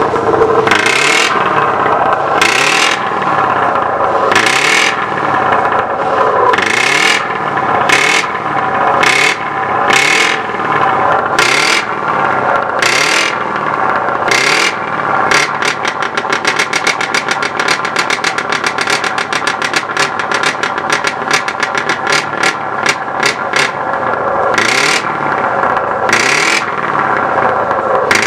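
Scania R620's 16-litre V8 diesel revved again and again through loud exhaust pipes, in throttle blips about a second apart. In the middle stretch it is blipped in a quick, fluttering run, then it goes back to spaced revs near the end.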